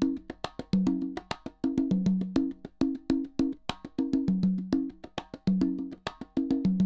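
Percussion music with sharp, wood-block-like clicks over low pitched drum notes, in a fast pattern that repeats about every second.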